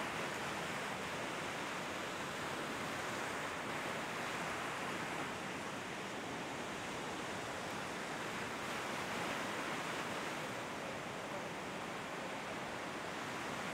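Steady wash of sea surf breaking on a sandy beach, an even hiss with no distinct individual waves.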